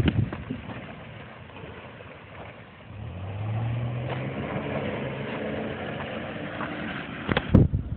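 2008 Ford Ranger's engine running, quiet for the first few seconds, then pulling harder from about three seconds in with a slowly rising pitch. A few knocks at the start and one loud knock near the end.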